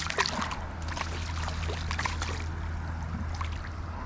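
Shallow water splashing and sloshing as a small pike is let go by hand and swims off. The small splashes come thickest over the first two seconds or so, over a steady low hum.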